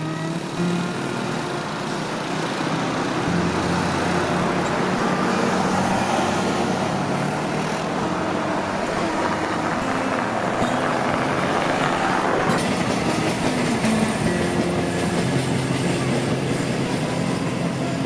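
Steady road traffic noise of cars and motorcycles driving past, with the sound changing abruptly about twelve seconds in.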